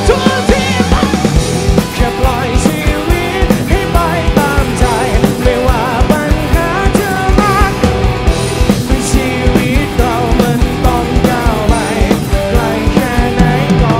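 Live rock band playing loud through the PA: a drum kit keeping a steady beat under electric bass and guitars, with a voice singing over it.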